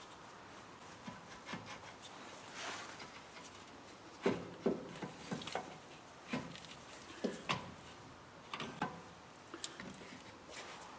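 Light knocks, clinks and a little scraping at irregular intervals, more frequent from about four seconds in: tools and brake parts being handled during a rear brake pad change.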